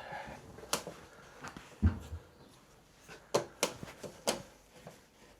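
A few sharp clicks and knocks from hand work on motorcycle parts and tools, with a louder, low thump a little under two seconds in.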